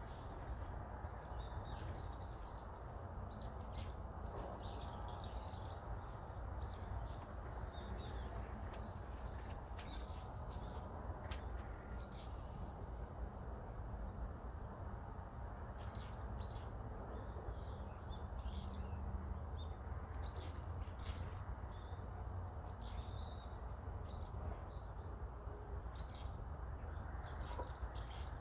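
Insects chirping: a cricket-like high chirp repeats evenly about once a second, with scattered shorter chirps. A steady low rumble runs underneath.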